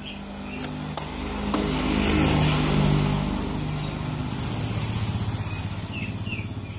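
Small motorcycles passing on the road. One engine grows louder to a peak about two to three seconds in and eases off, while another bike keeps running as it comes closer near the end.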